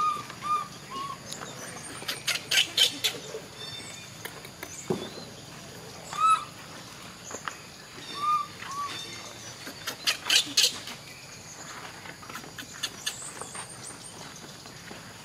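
Short, high arched animal calls in twos and threes, with a few brief clusters of sharp chirps or clicks between them.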